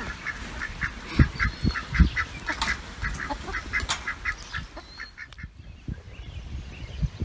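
Ducks quacking in rapid runs of short calls, several a second, stopping about four seconds in, with a few low thumps.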